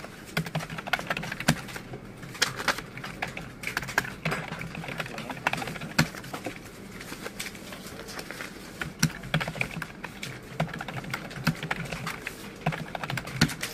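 Typing on a computer keyboard: a quick, uneven run of keystroke clicks.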